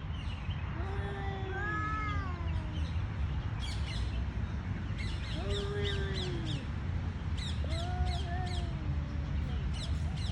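Male cat yowling in a territorial standoff: three long, wavering yowls that each rise and then fall in pitch. Small birds chirp in the background.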